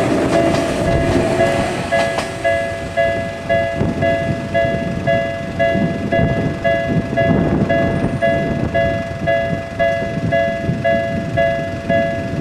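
Japanese level-crossing warning bell ringing about twice a second, over the rumble of a Tokyu 7700 series train passing. Its wheels clack over rail joints in the first two seconds or so.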